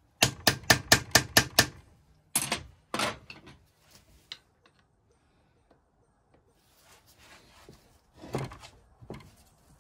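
Small hammer tapping a screwdriver set in a rusted screw on a cast-iron vaporiser, about eight quick, sharp metallic taps in under two seconds, then two heavier knocks, to shock the screw loose. Fainter knocks and scraping of tools on the part follow, with a short louder stretch near the end.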